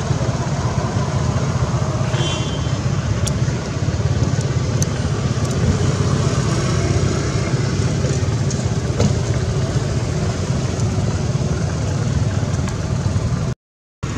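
Steady low rumble of road traffic, with a few faint clicks over it; it drops out for a moment near the end.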